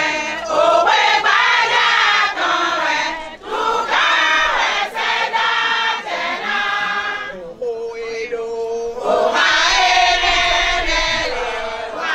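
Group of women singing together in a chant-like song, in phrases with short breaks. About two thirds of the way through the sound thins to one held note, then the full group comes back in.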